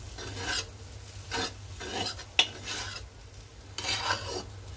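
Metal spatula stirring and tossing fried rice in a wok: a run of short scraping strokes against the pan over a faint sizzle, with one sharp clack about two and a half seconds in.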